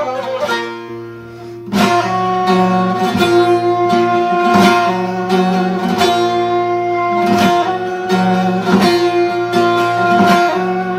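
Background music: a plucked string instrument playing a melody over a steady low drone. It fades briefly about a second in and starts a new phrase just before two seconds.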